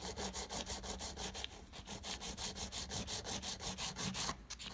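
Hand nail file rasping quickly back and forth against a sculptured odorless acrylic nail, about six strokes a second, shaping the lower arch of the cured nail. The strokes stop briefly near the end.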